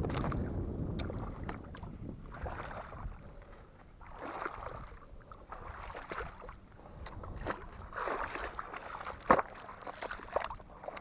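Wind on the microphone, loudest at the start, then irregular swishes of water and sharp clicks as a baitcasting rod and reel are handled. The loudest click comes about nine seconds in.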